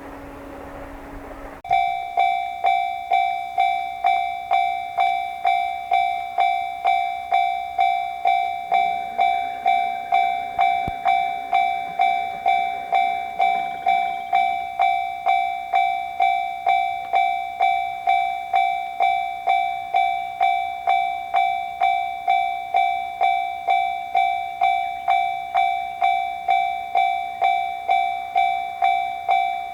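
Japanese railroad crossing's electronic warning bell ("kan-kan") starts about a second and a half in and rings on at a steady pace of about two strikes a second, signalling that the barriers are coming down for an approaching train.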